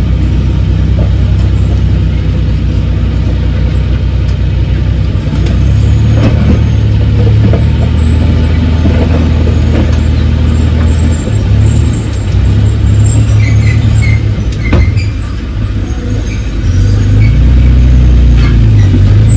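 Heavy earthmoving machine's diesel engine running loud and low, its note shifting up and down a few times as it works under changing load, with a few metallic knocks.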